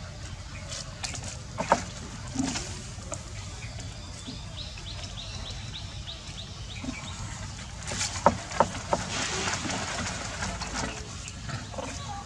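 Outdoor ambience with a steady low rumble, a quick run of small high chirps about four seconds in, and a few sharp clicks and taps, the loudest about eight seconds in.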